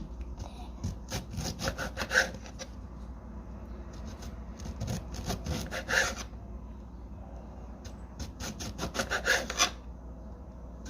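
A knife sawing back and forth through a lemon on a cutting board, cutting thin slices. It comes in three bouts of quick, rasping strokes with short pauses between them.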